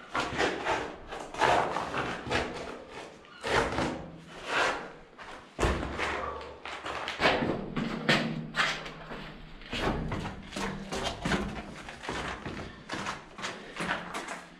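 Repeated thuds and scuffs of shoes and hands on concrete, about one or two a second, while clambering up a steep concrete passage.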